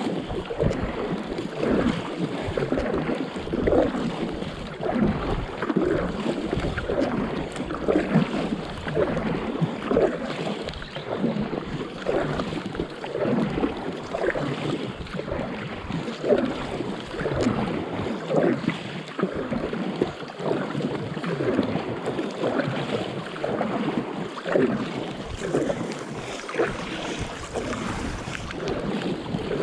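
Water lapping, gurgling and splashing against a stand-up paddleboard as it is paddled through calm sea, with many small irregular splashes over a steady wash.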